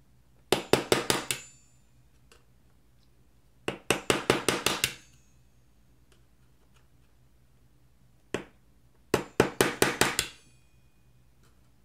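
Locking pliers striking the keyboard rivets in a 2015 MacBook Pro's aluminium top case: three quick runs of about six to eight sharp metal taps, roughly six or seven a second, with a single tap just before the last run.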